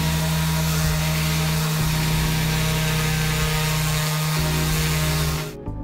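Parkside random orbital sander running on a hardwood (mahogany) board with a 60-grit disc, a steady motor hum under the hiss of the paper on the wood. The sound cuts off suddenly near the end.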